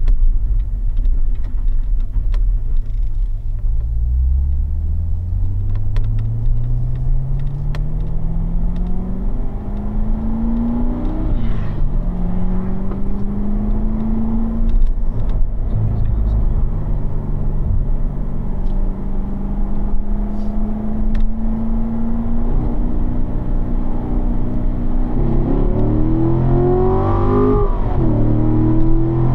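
Chevrolet C7 Corvette Z51's 6.2-litre LT1 V8 accelerating through the gears. The engine note climbs from low revs in first, drops at the shift to second about eleven seconds in, rises slowly, then climbs more steeply. It drops again at the shift to third near the end and starts climbing once more.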